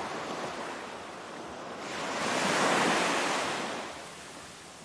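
Rushing sound of a wave washing in: a steady hiss that swells about two seconds in, peaks and then fades away.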